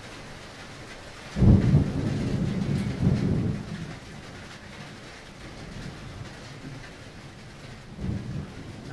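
Thunderstorm: a sudden loud rumble of thunder about a second and a half in, swelling again and fading over about two seconds, over a steady hiss of rain. A weaker rumble of thunder comes near the end.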